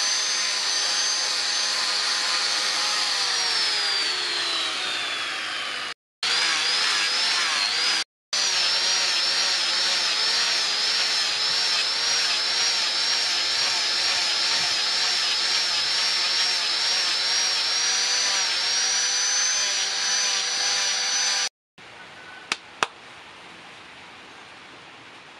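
Electric angle grinder with a sanding disc sanding a wooden axe handle: a steady high motor whine whose pitch sinks and wavers as the disc is pressed into the wood. It cuts off abruptly a few times, and near the end the grinder is silent and only two sharp clicks are heard.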